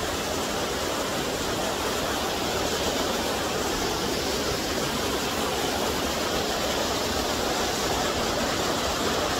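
Small two-stranded waterfall pouring over rock into a shallow, stony pool: a steady, even rush of falling and splashing water.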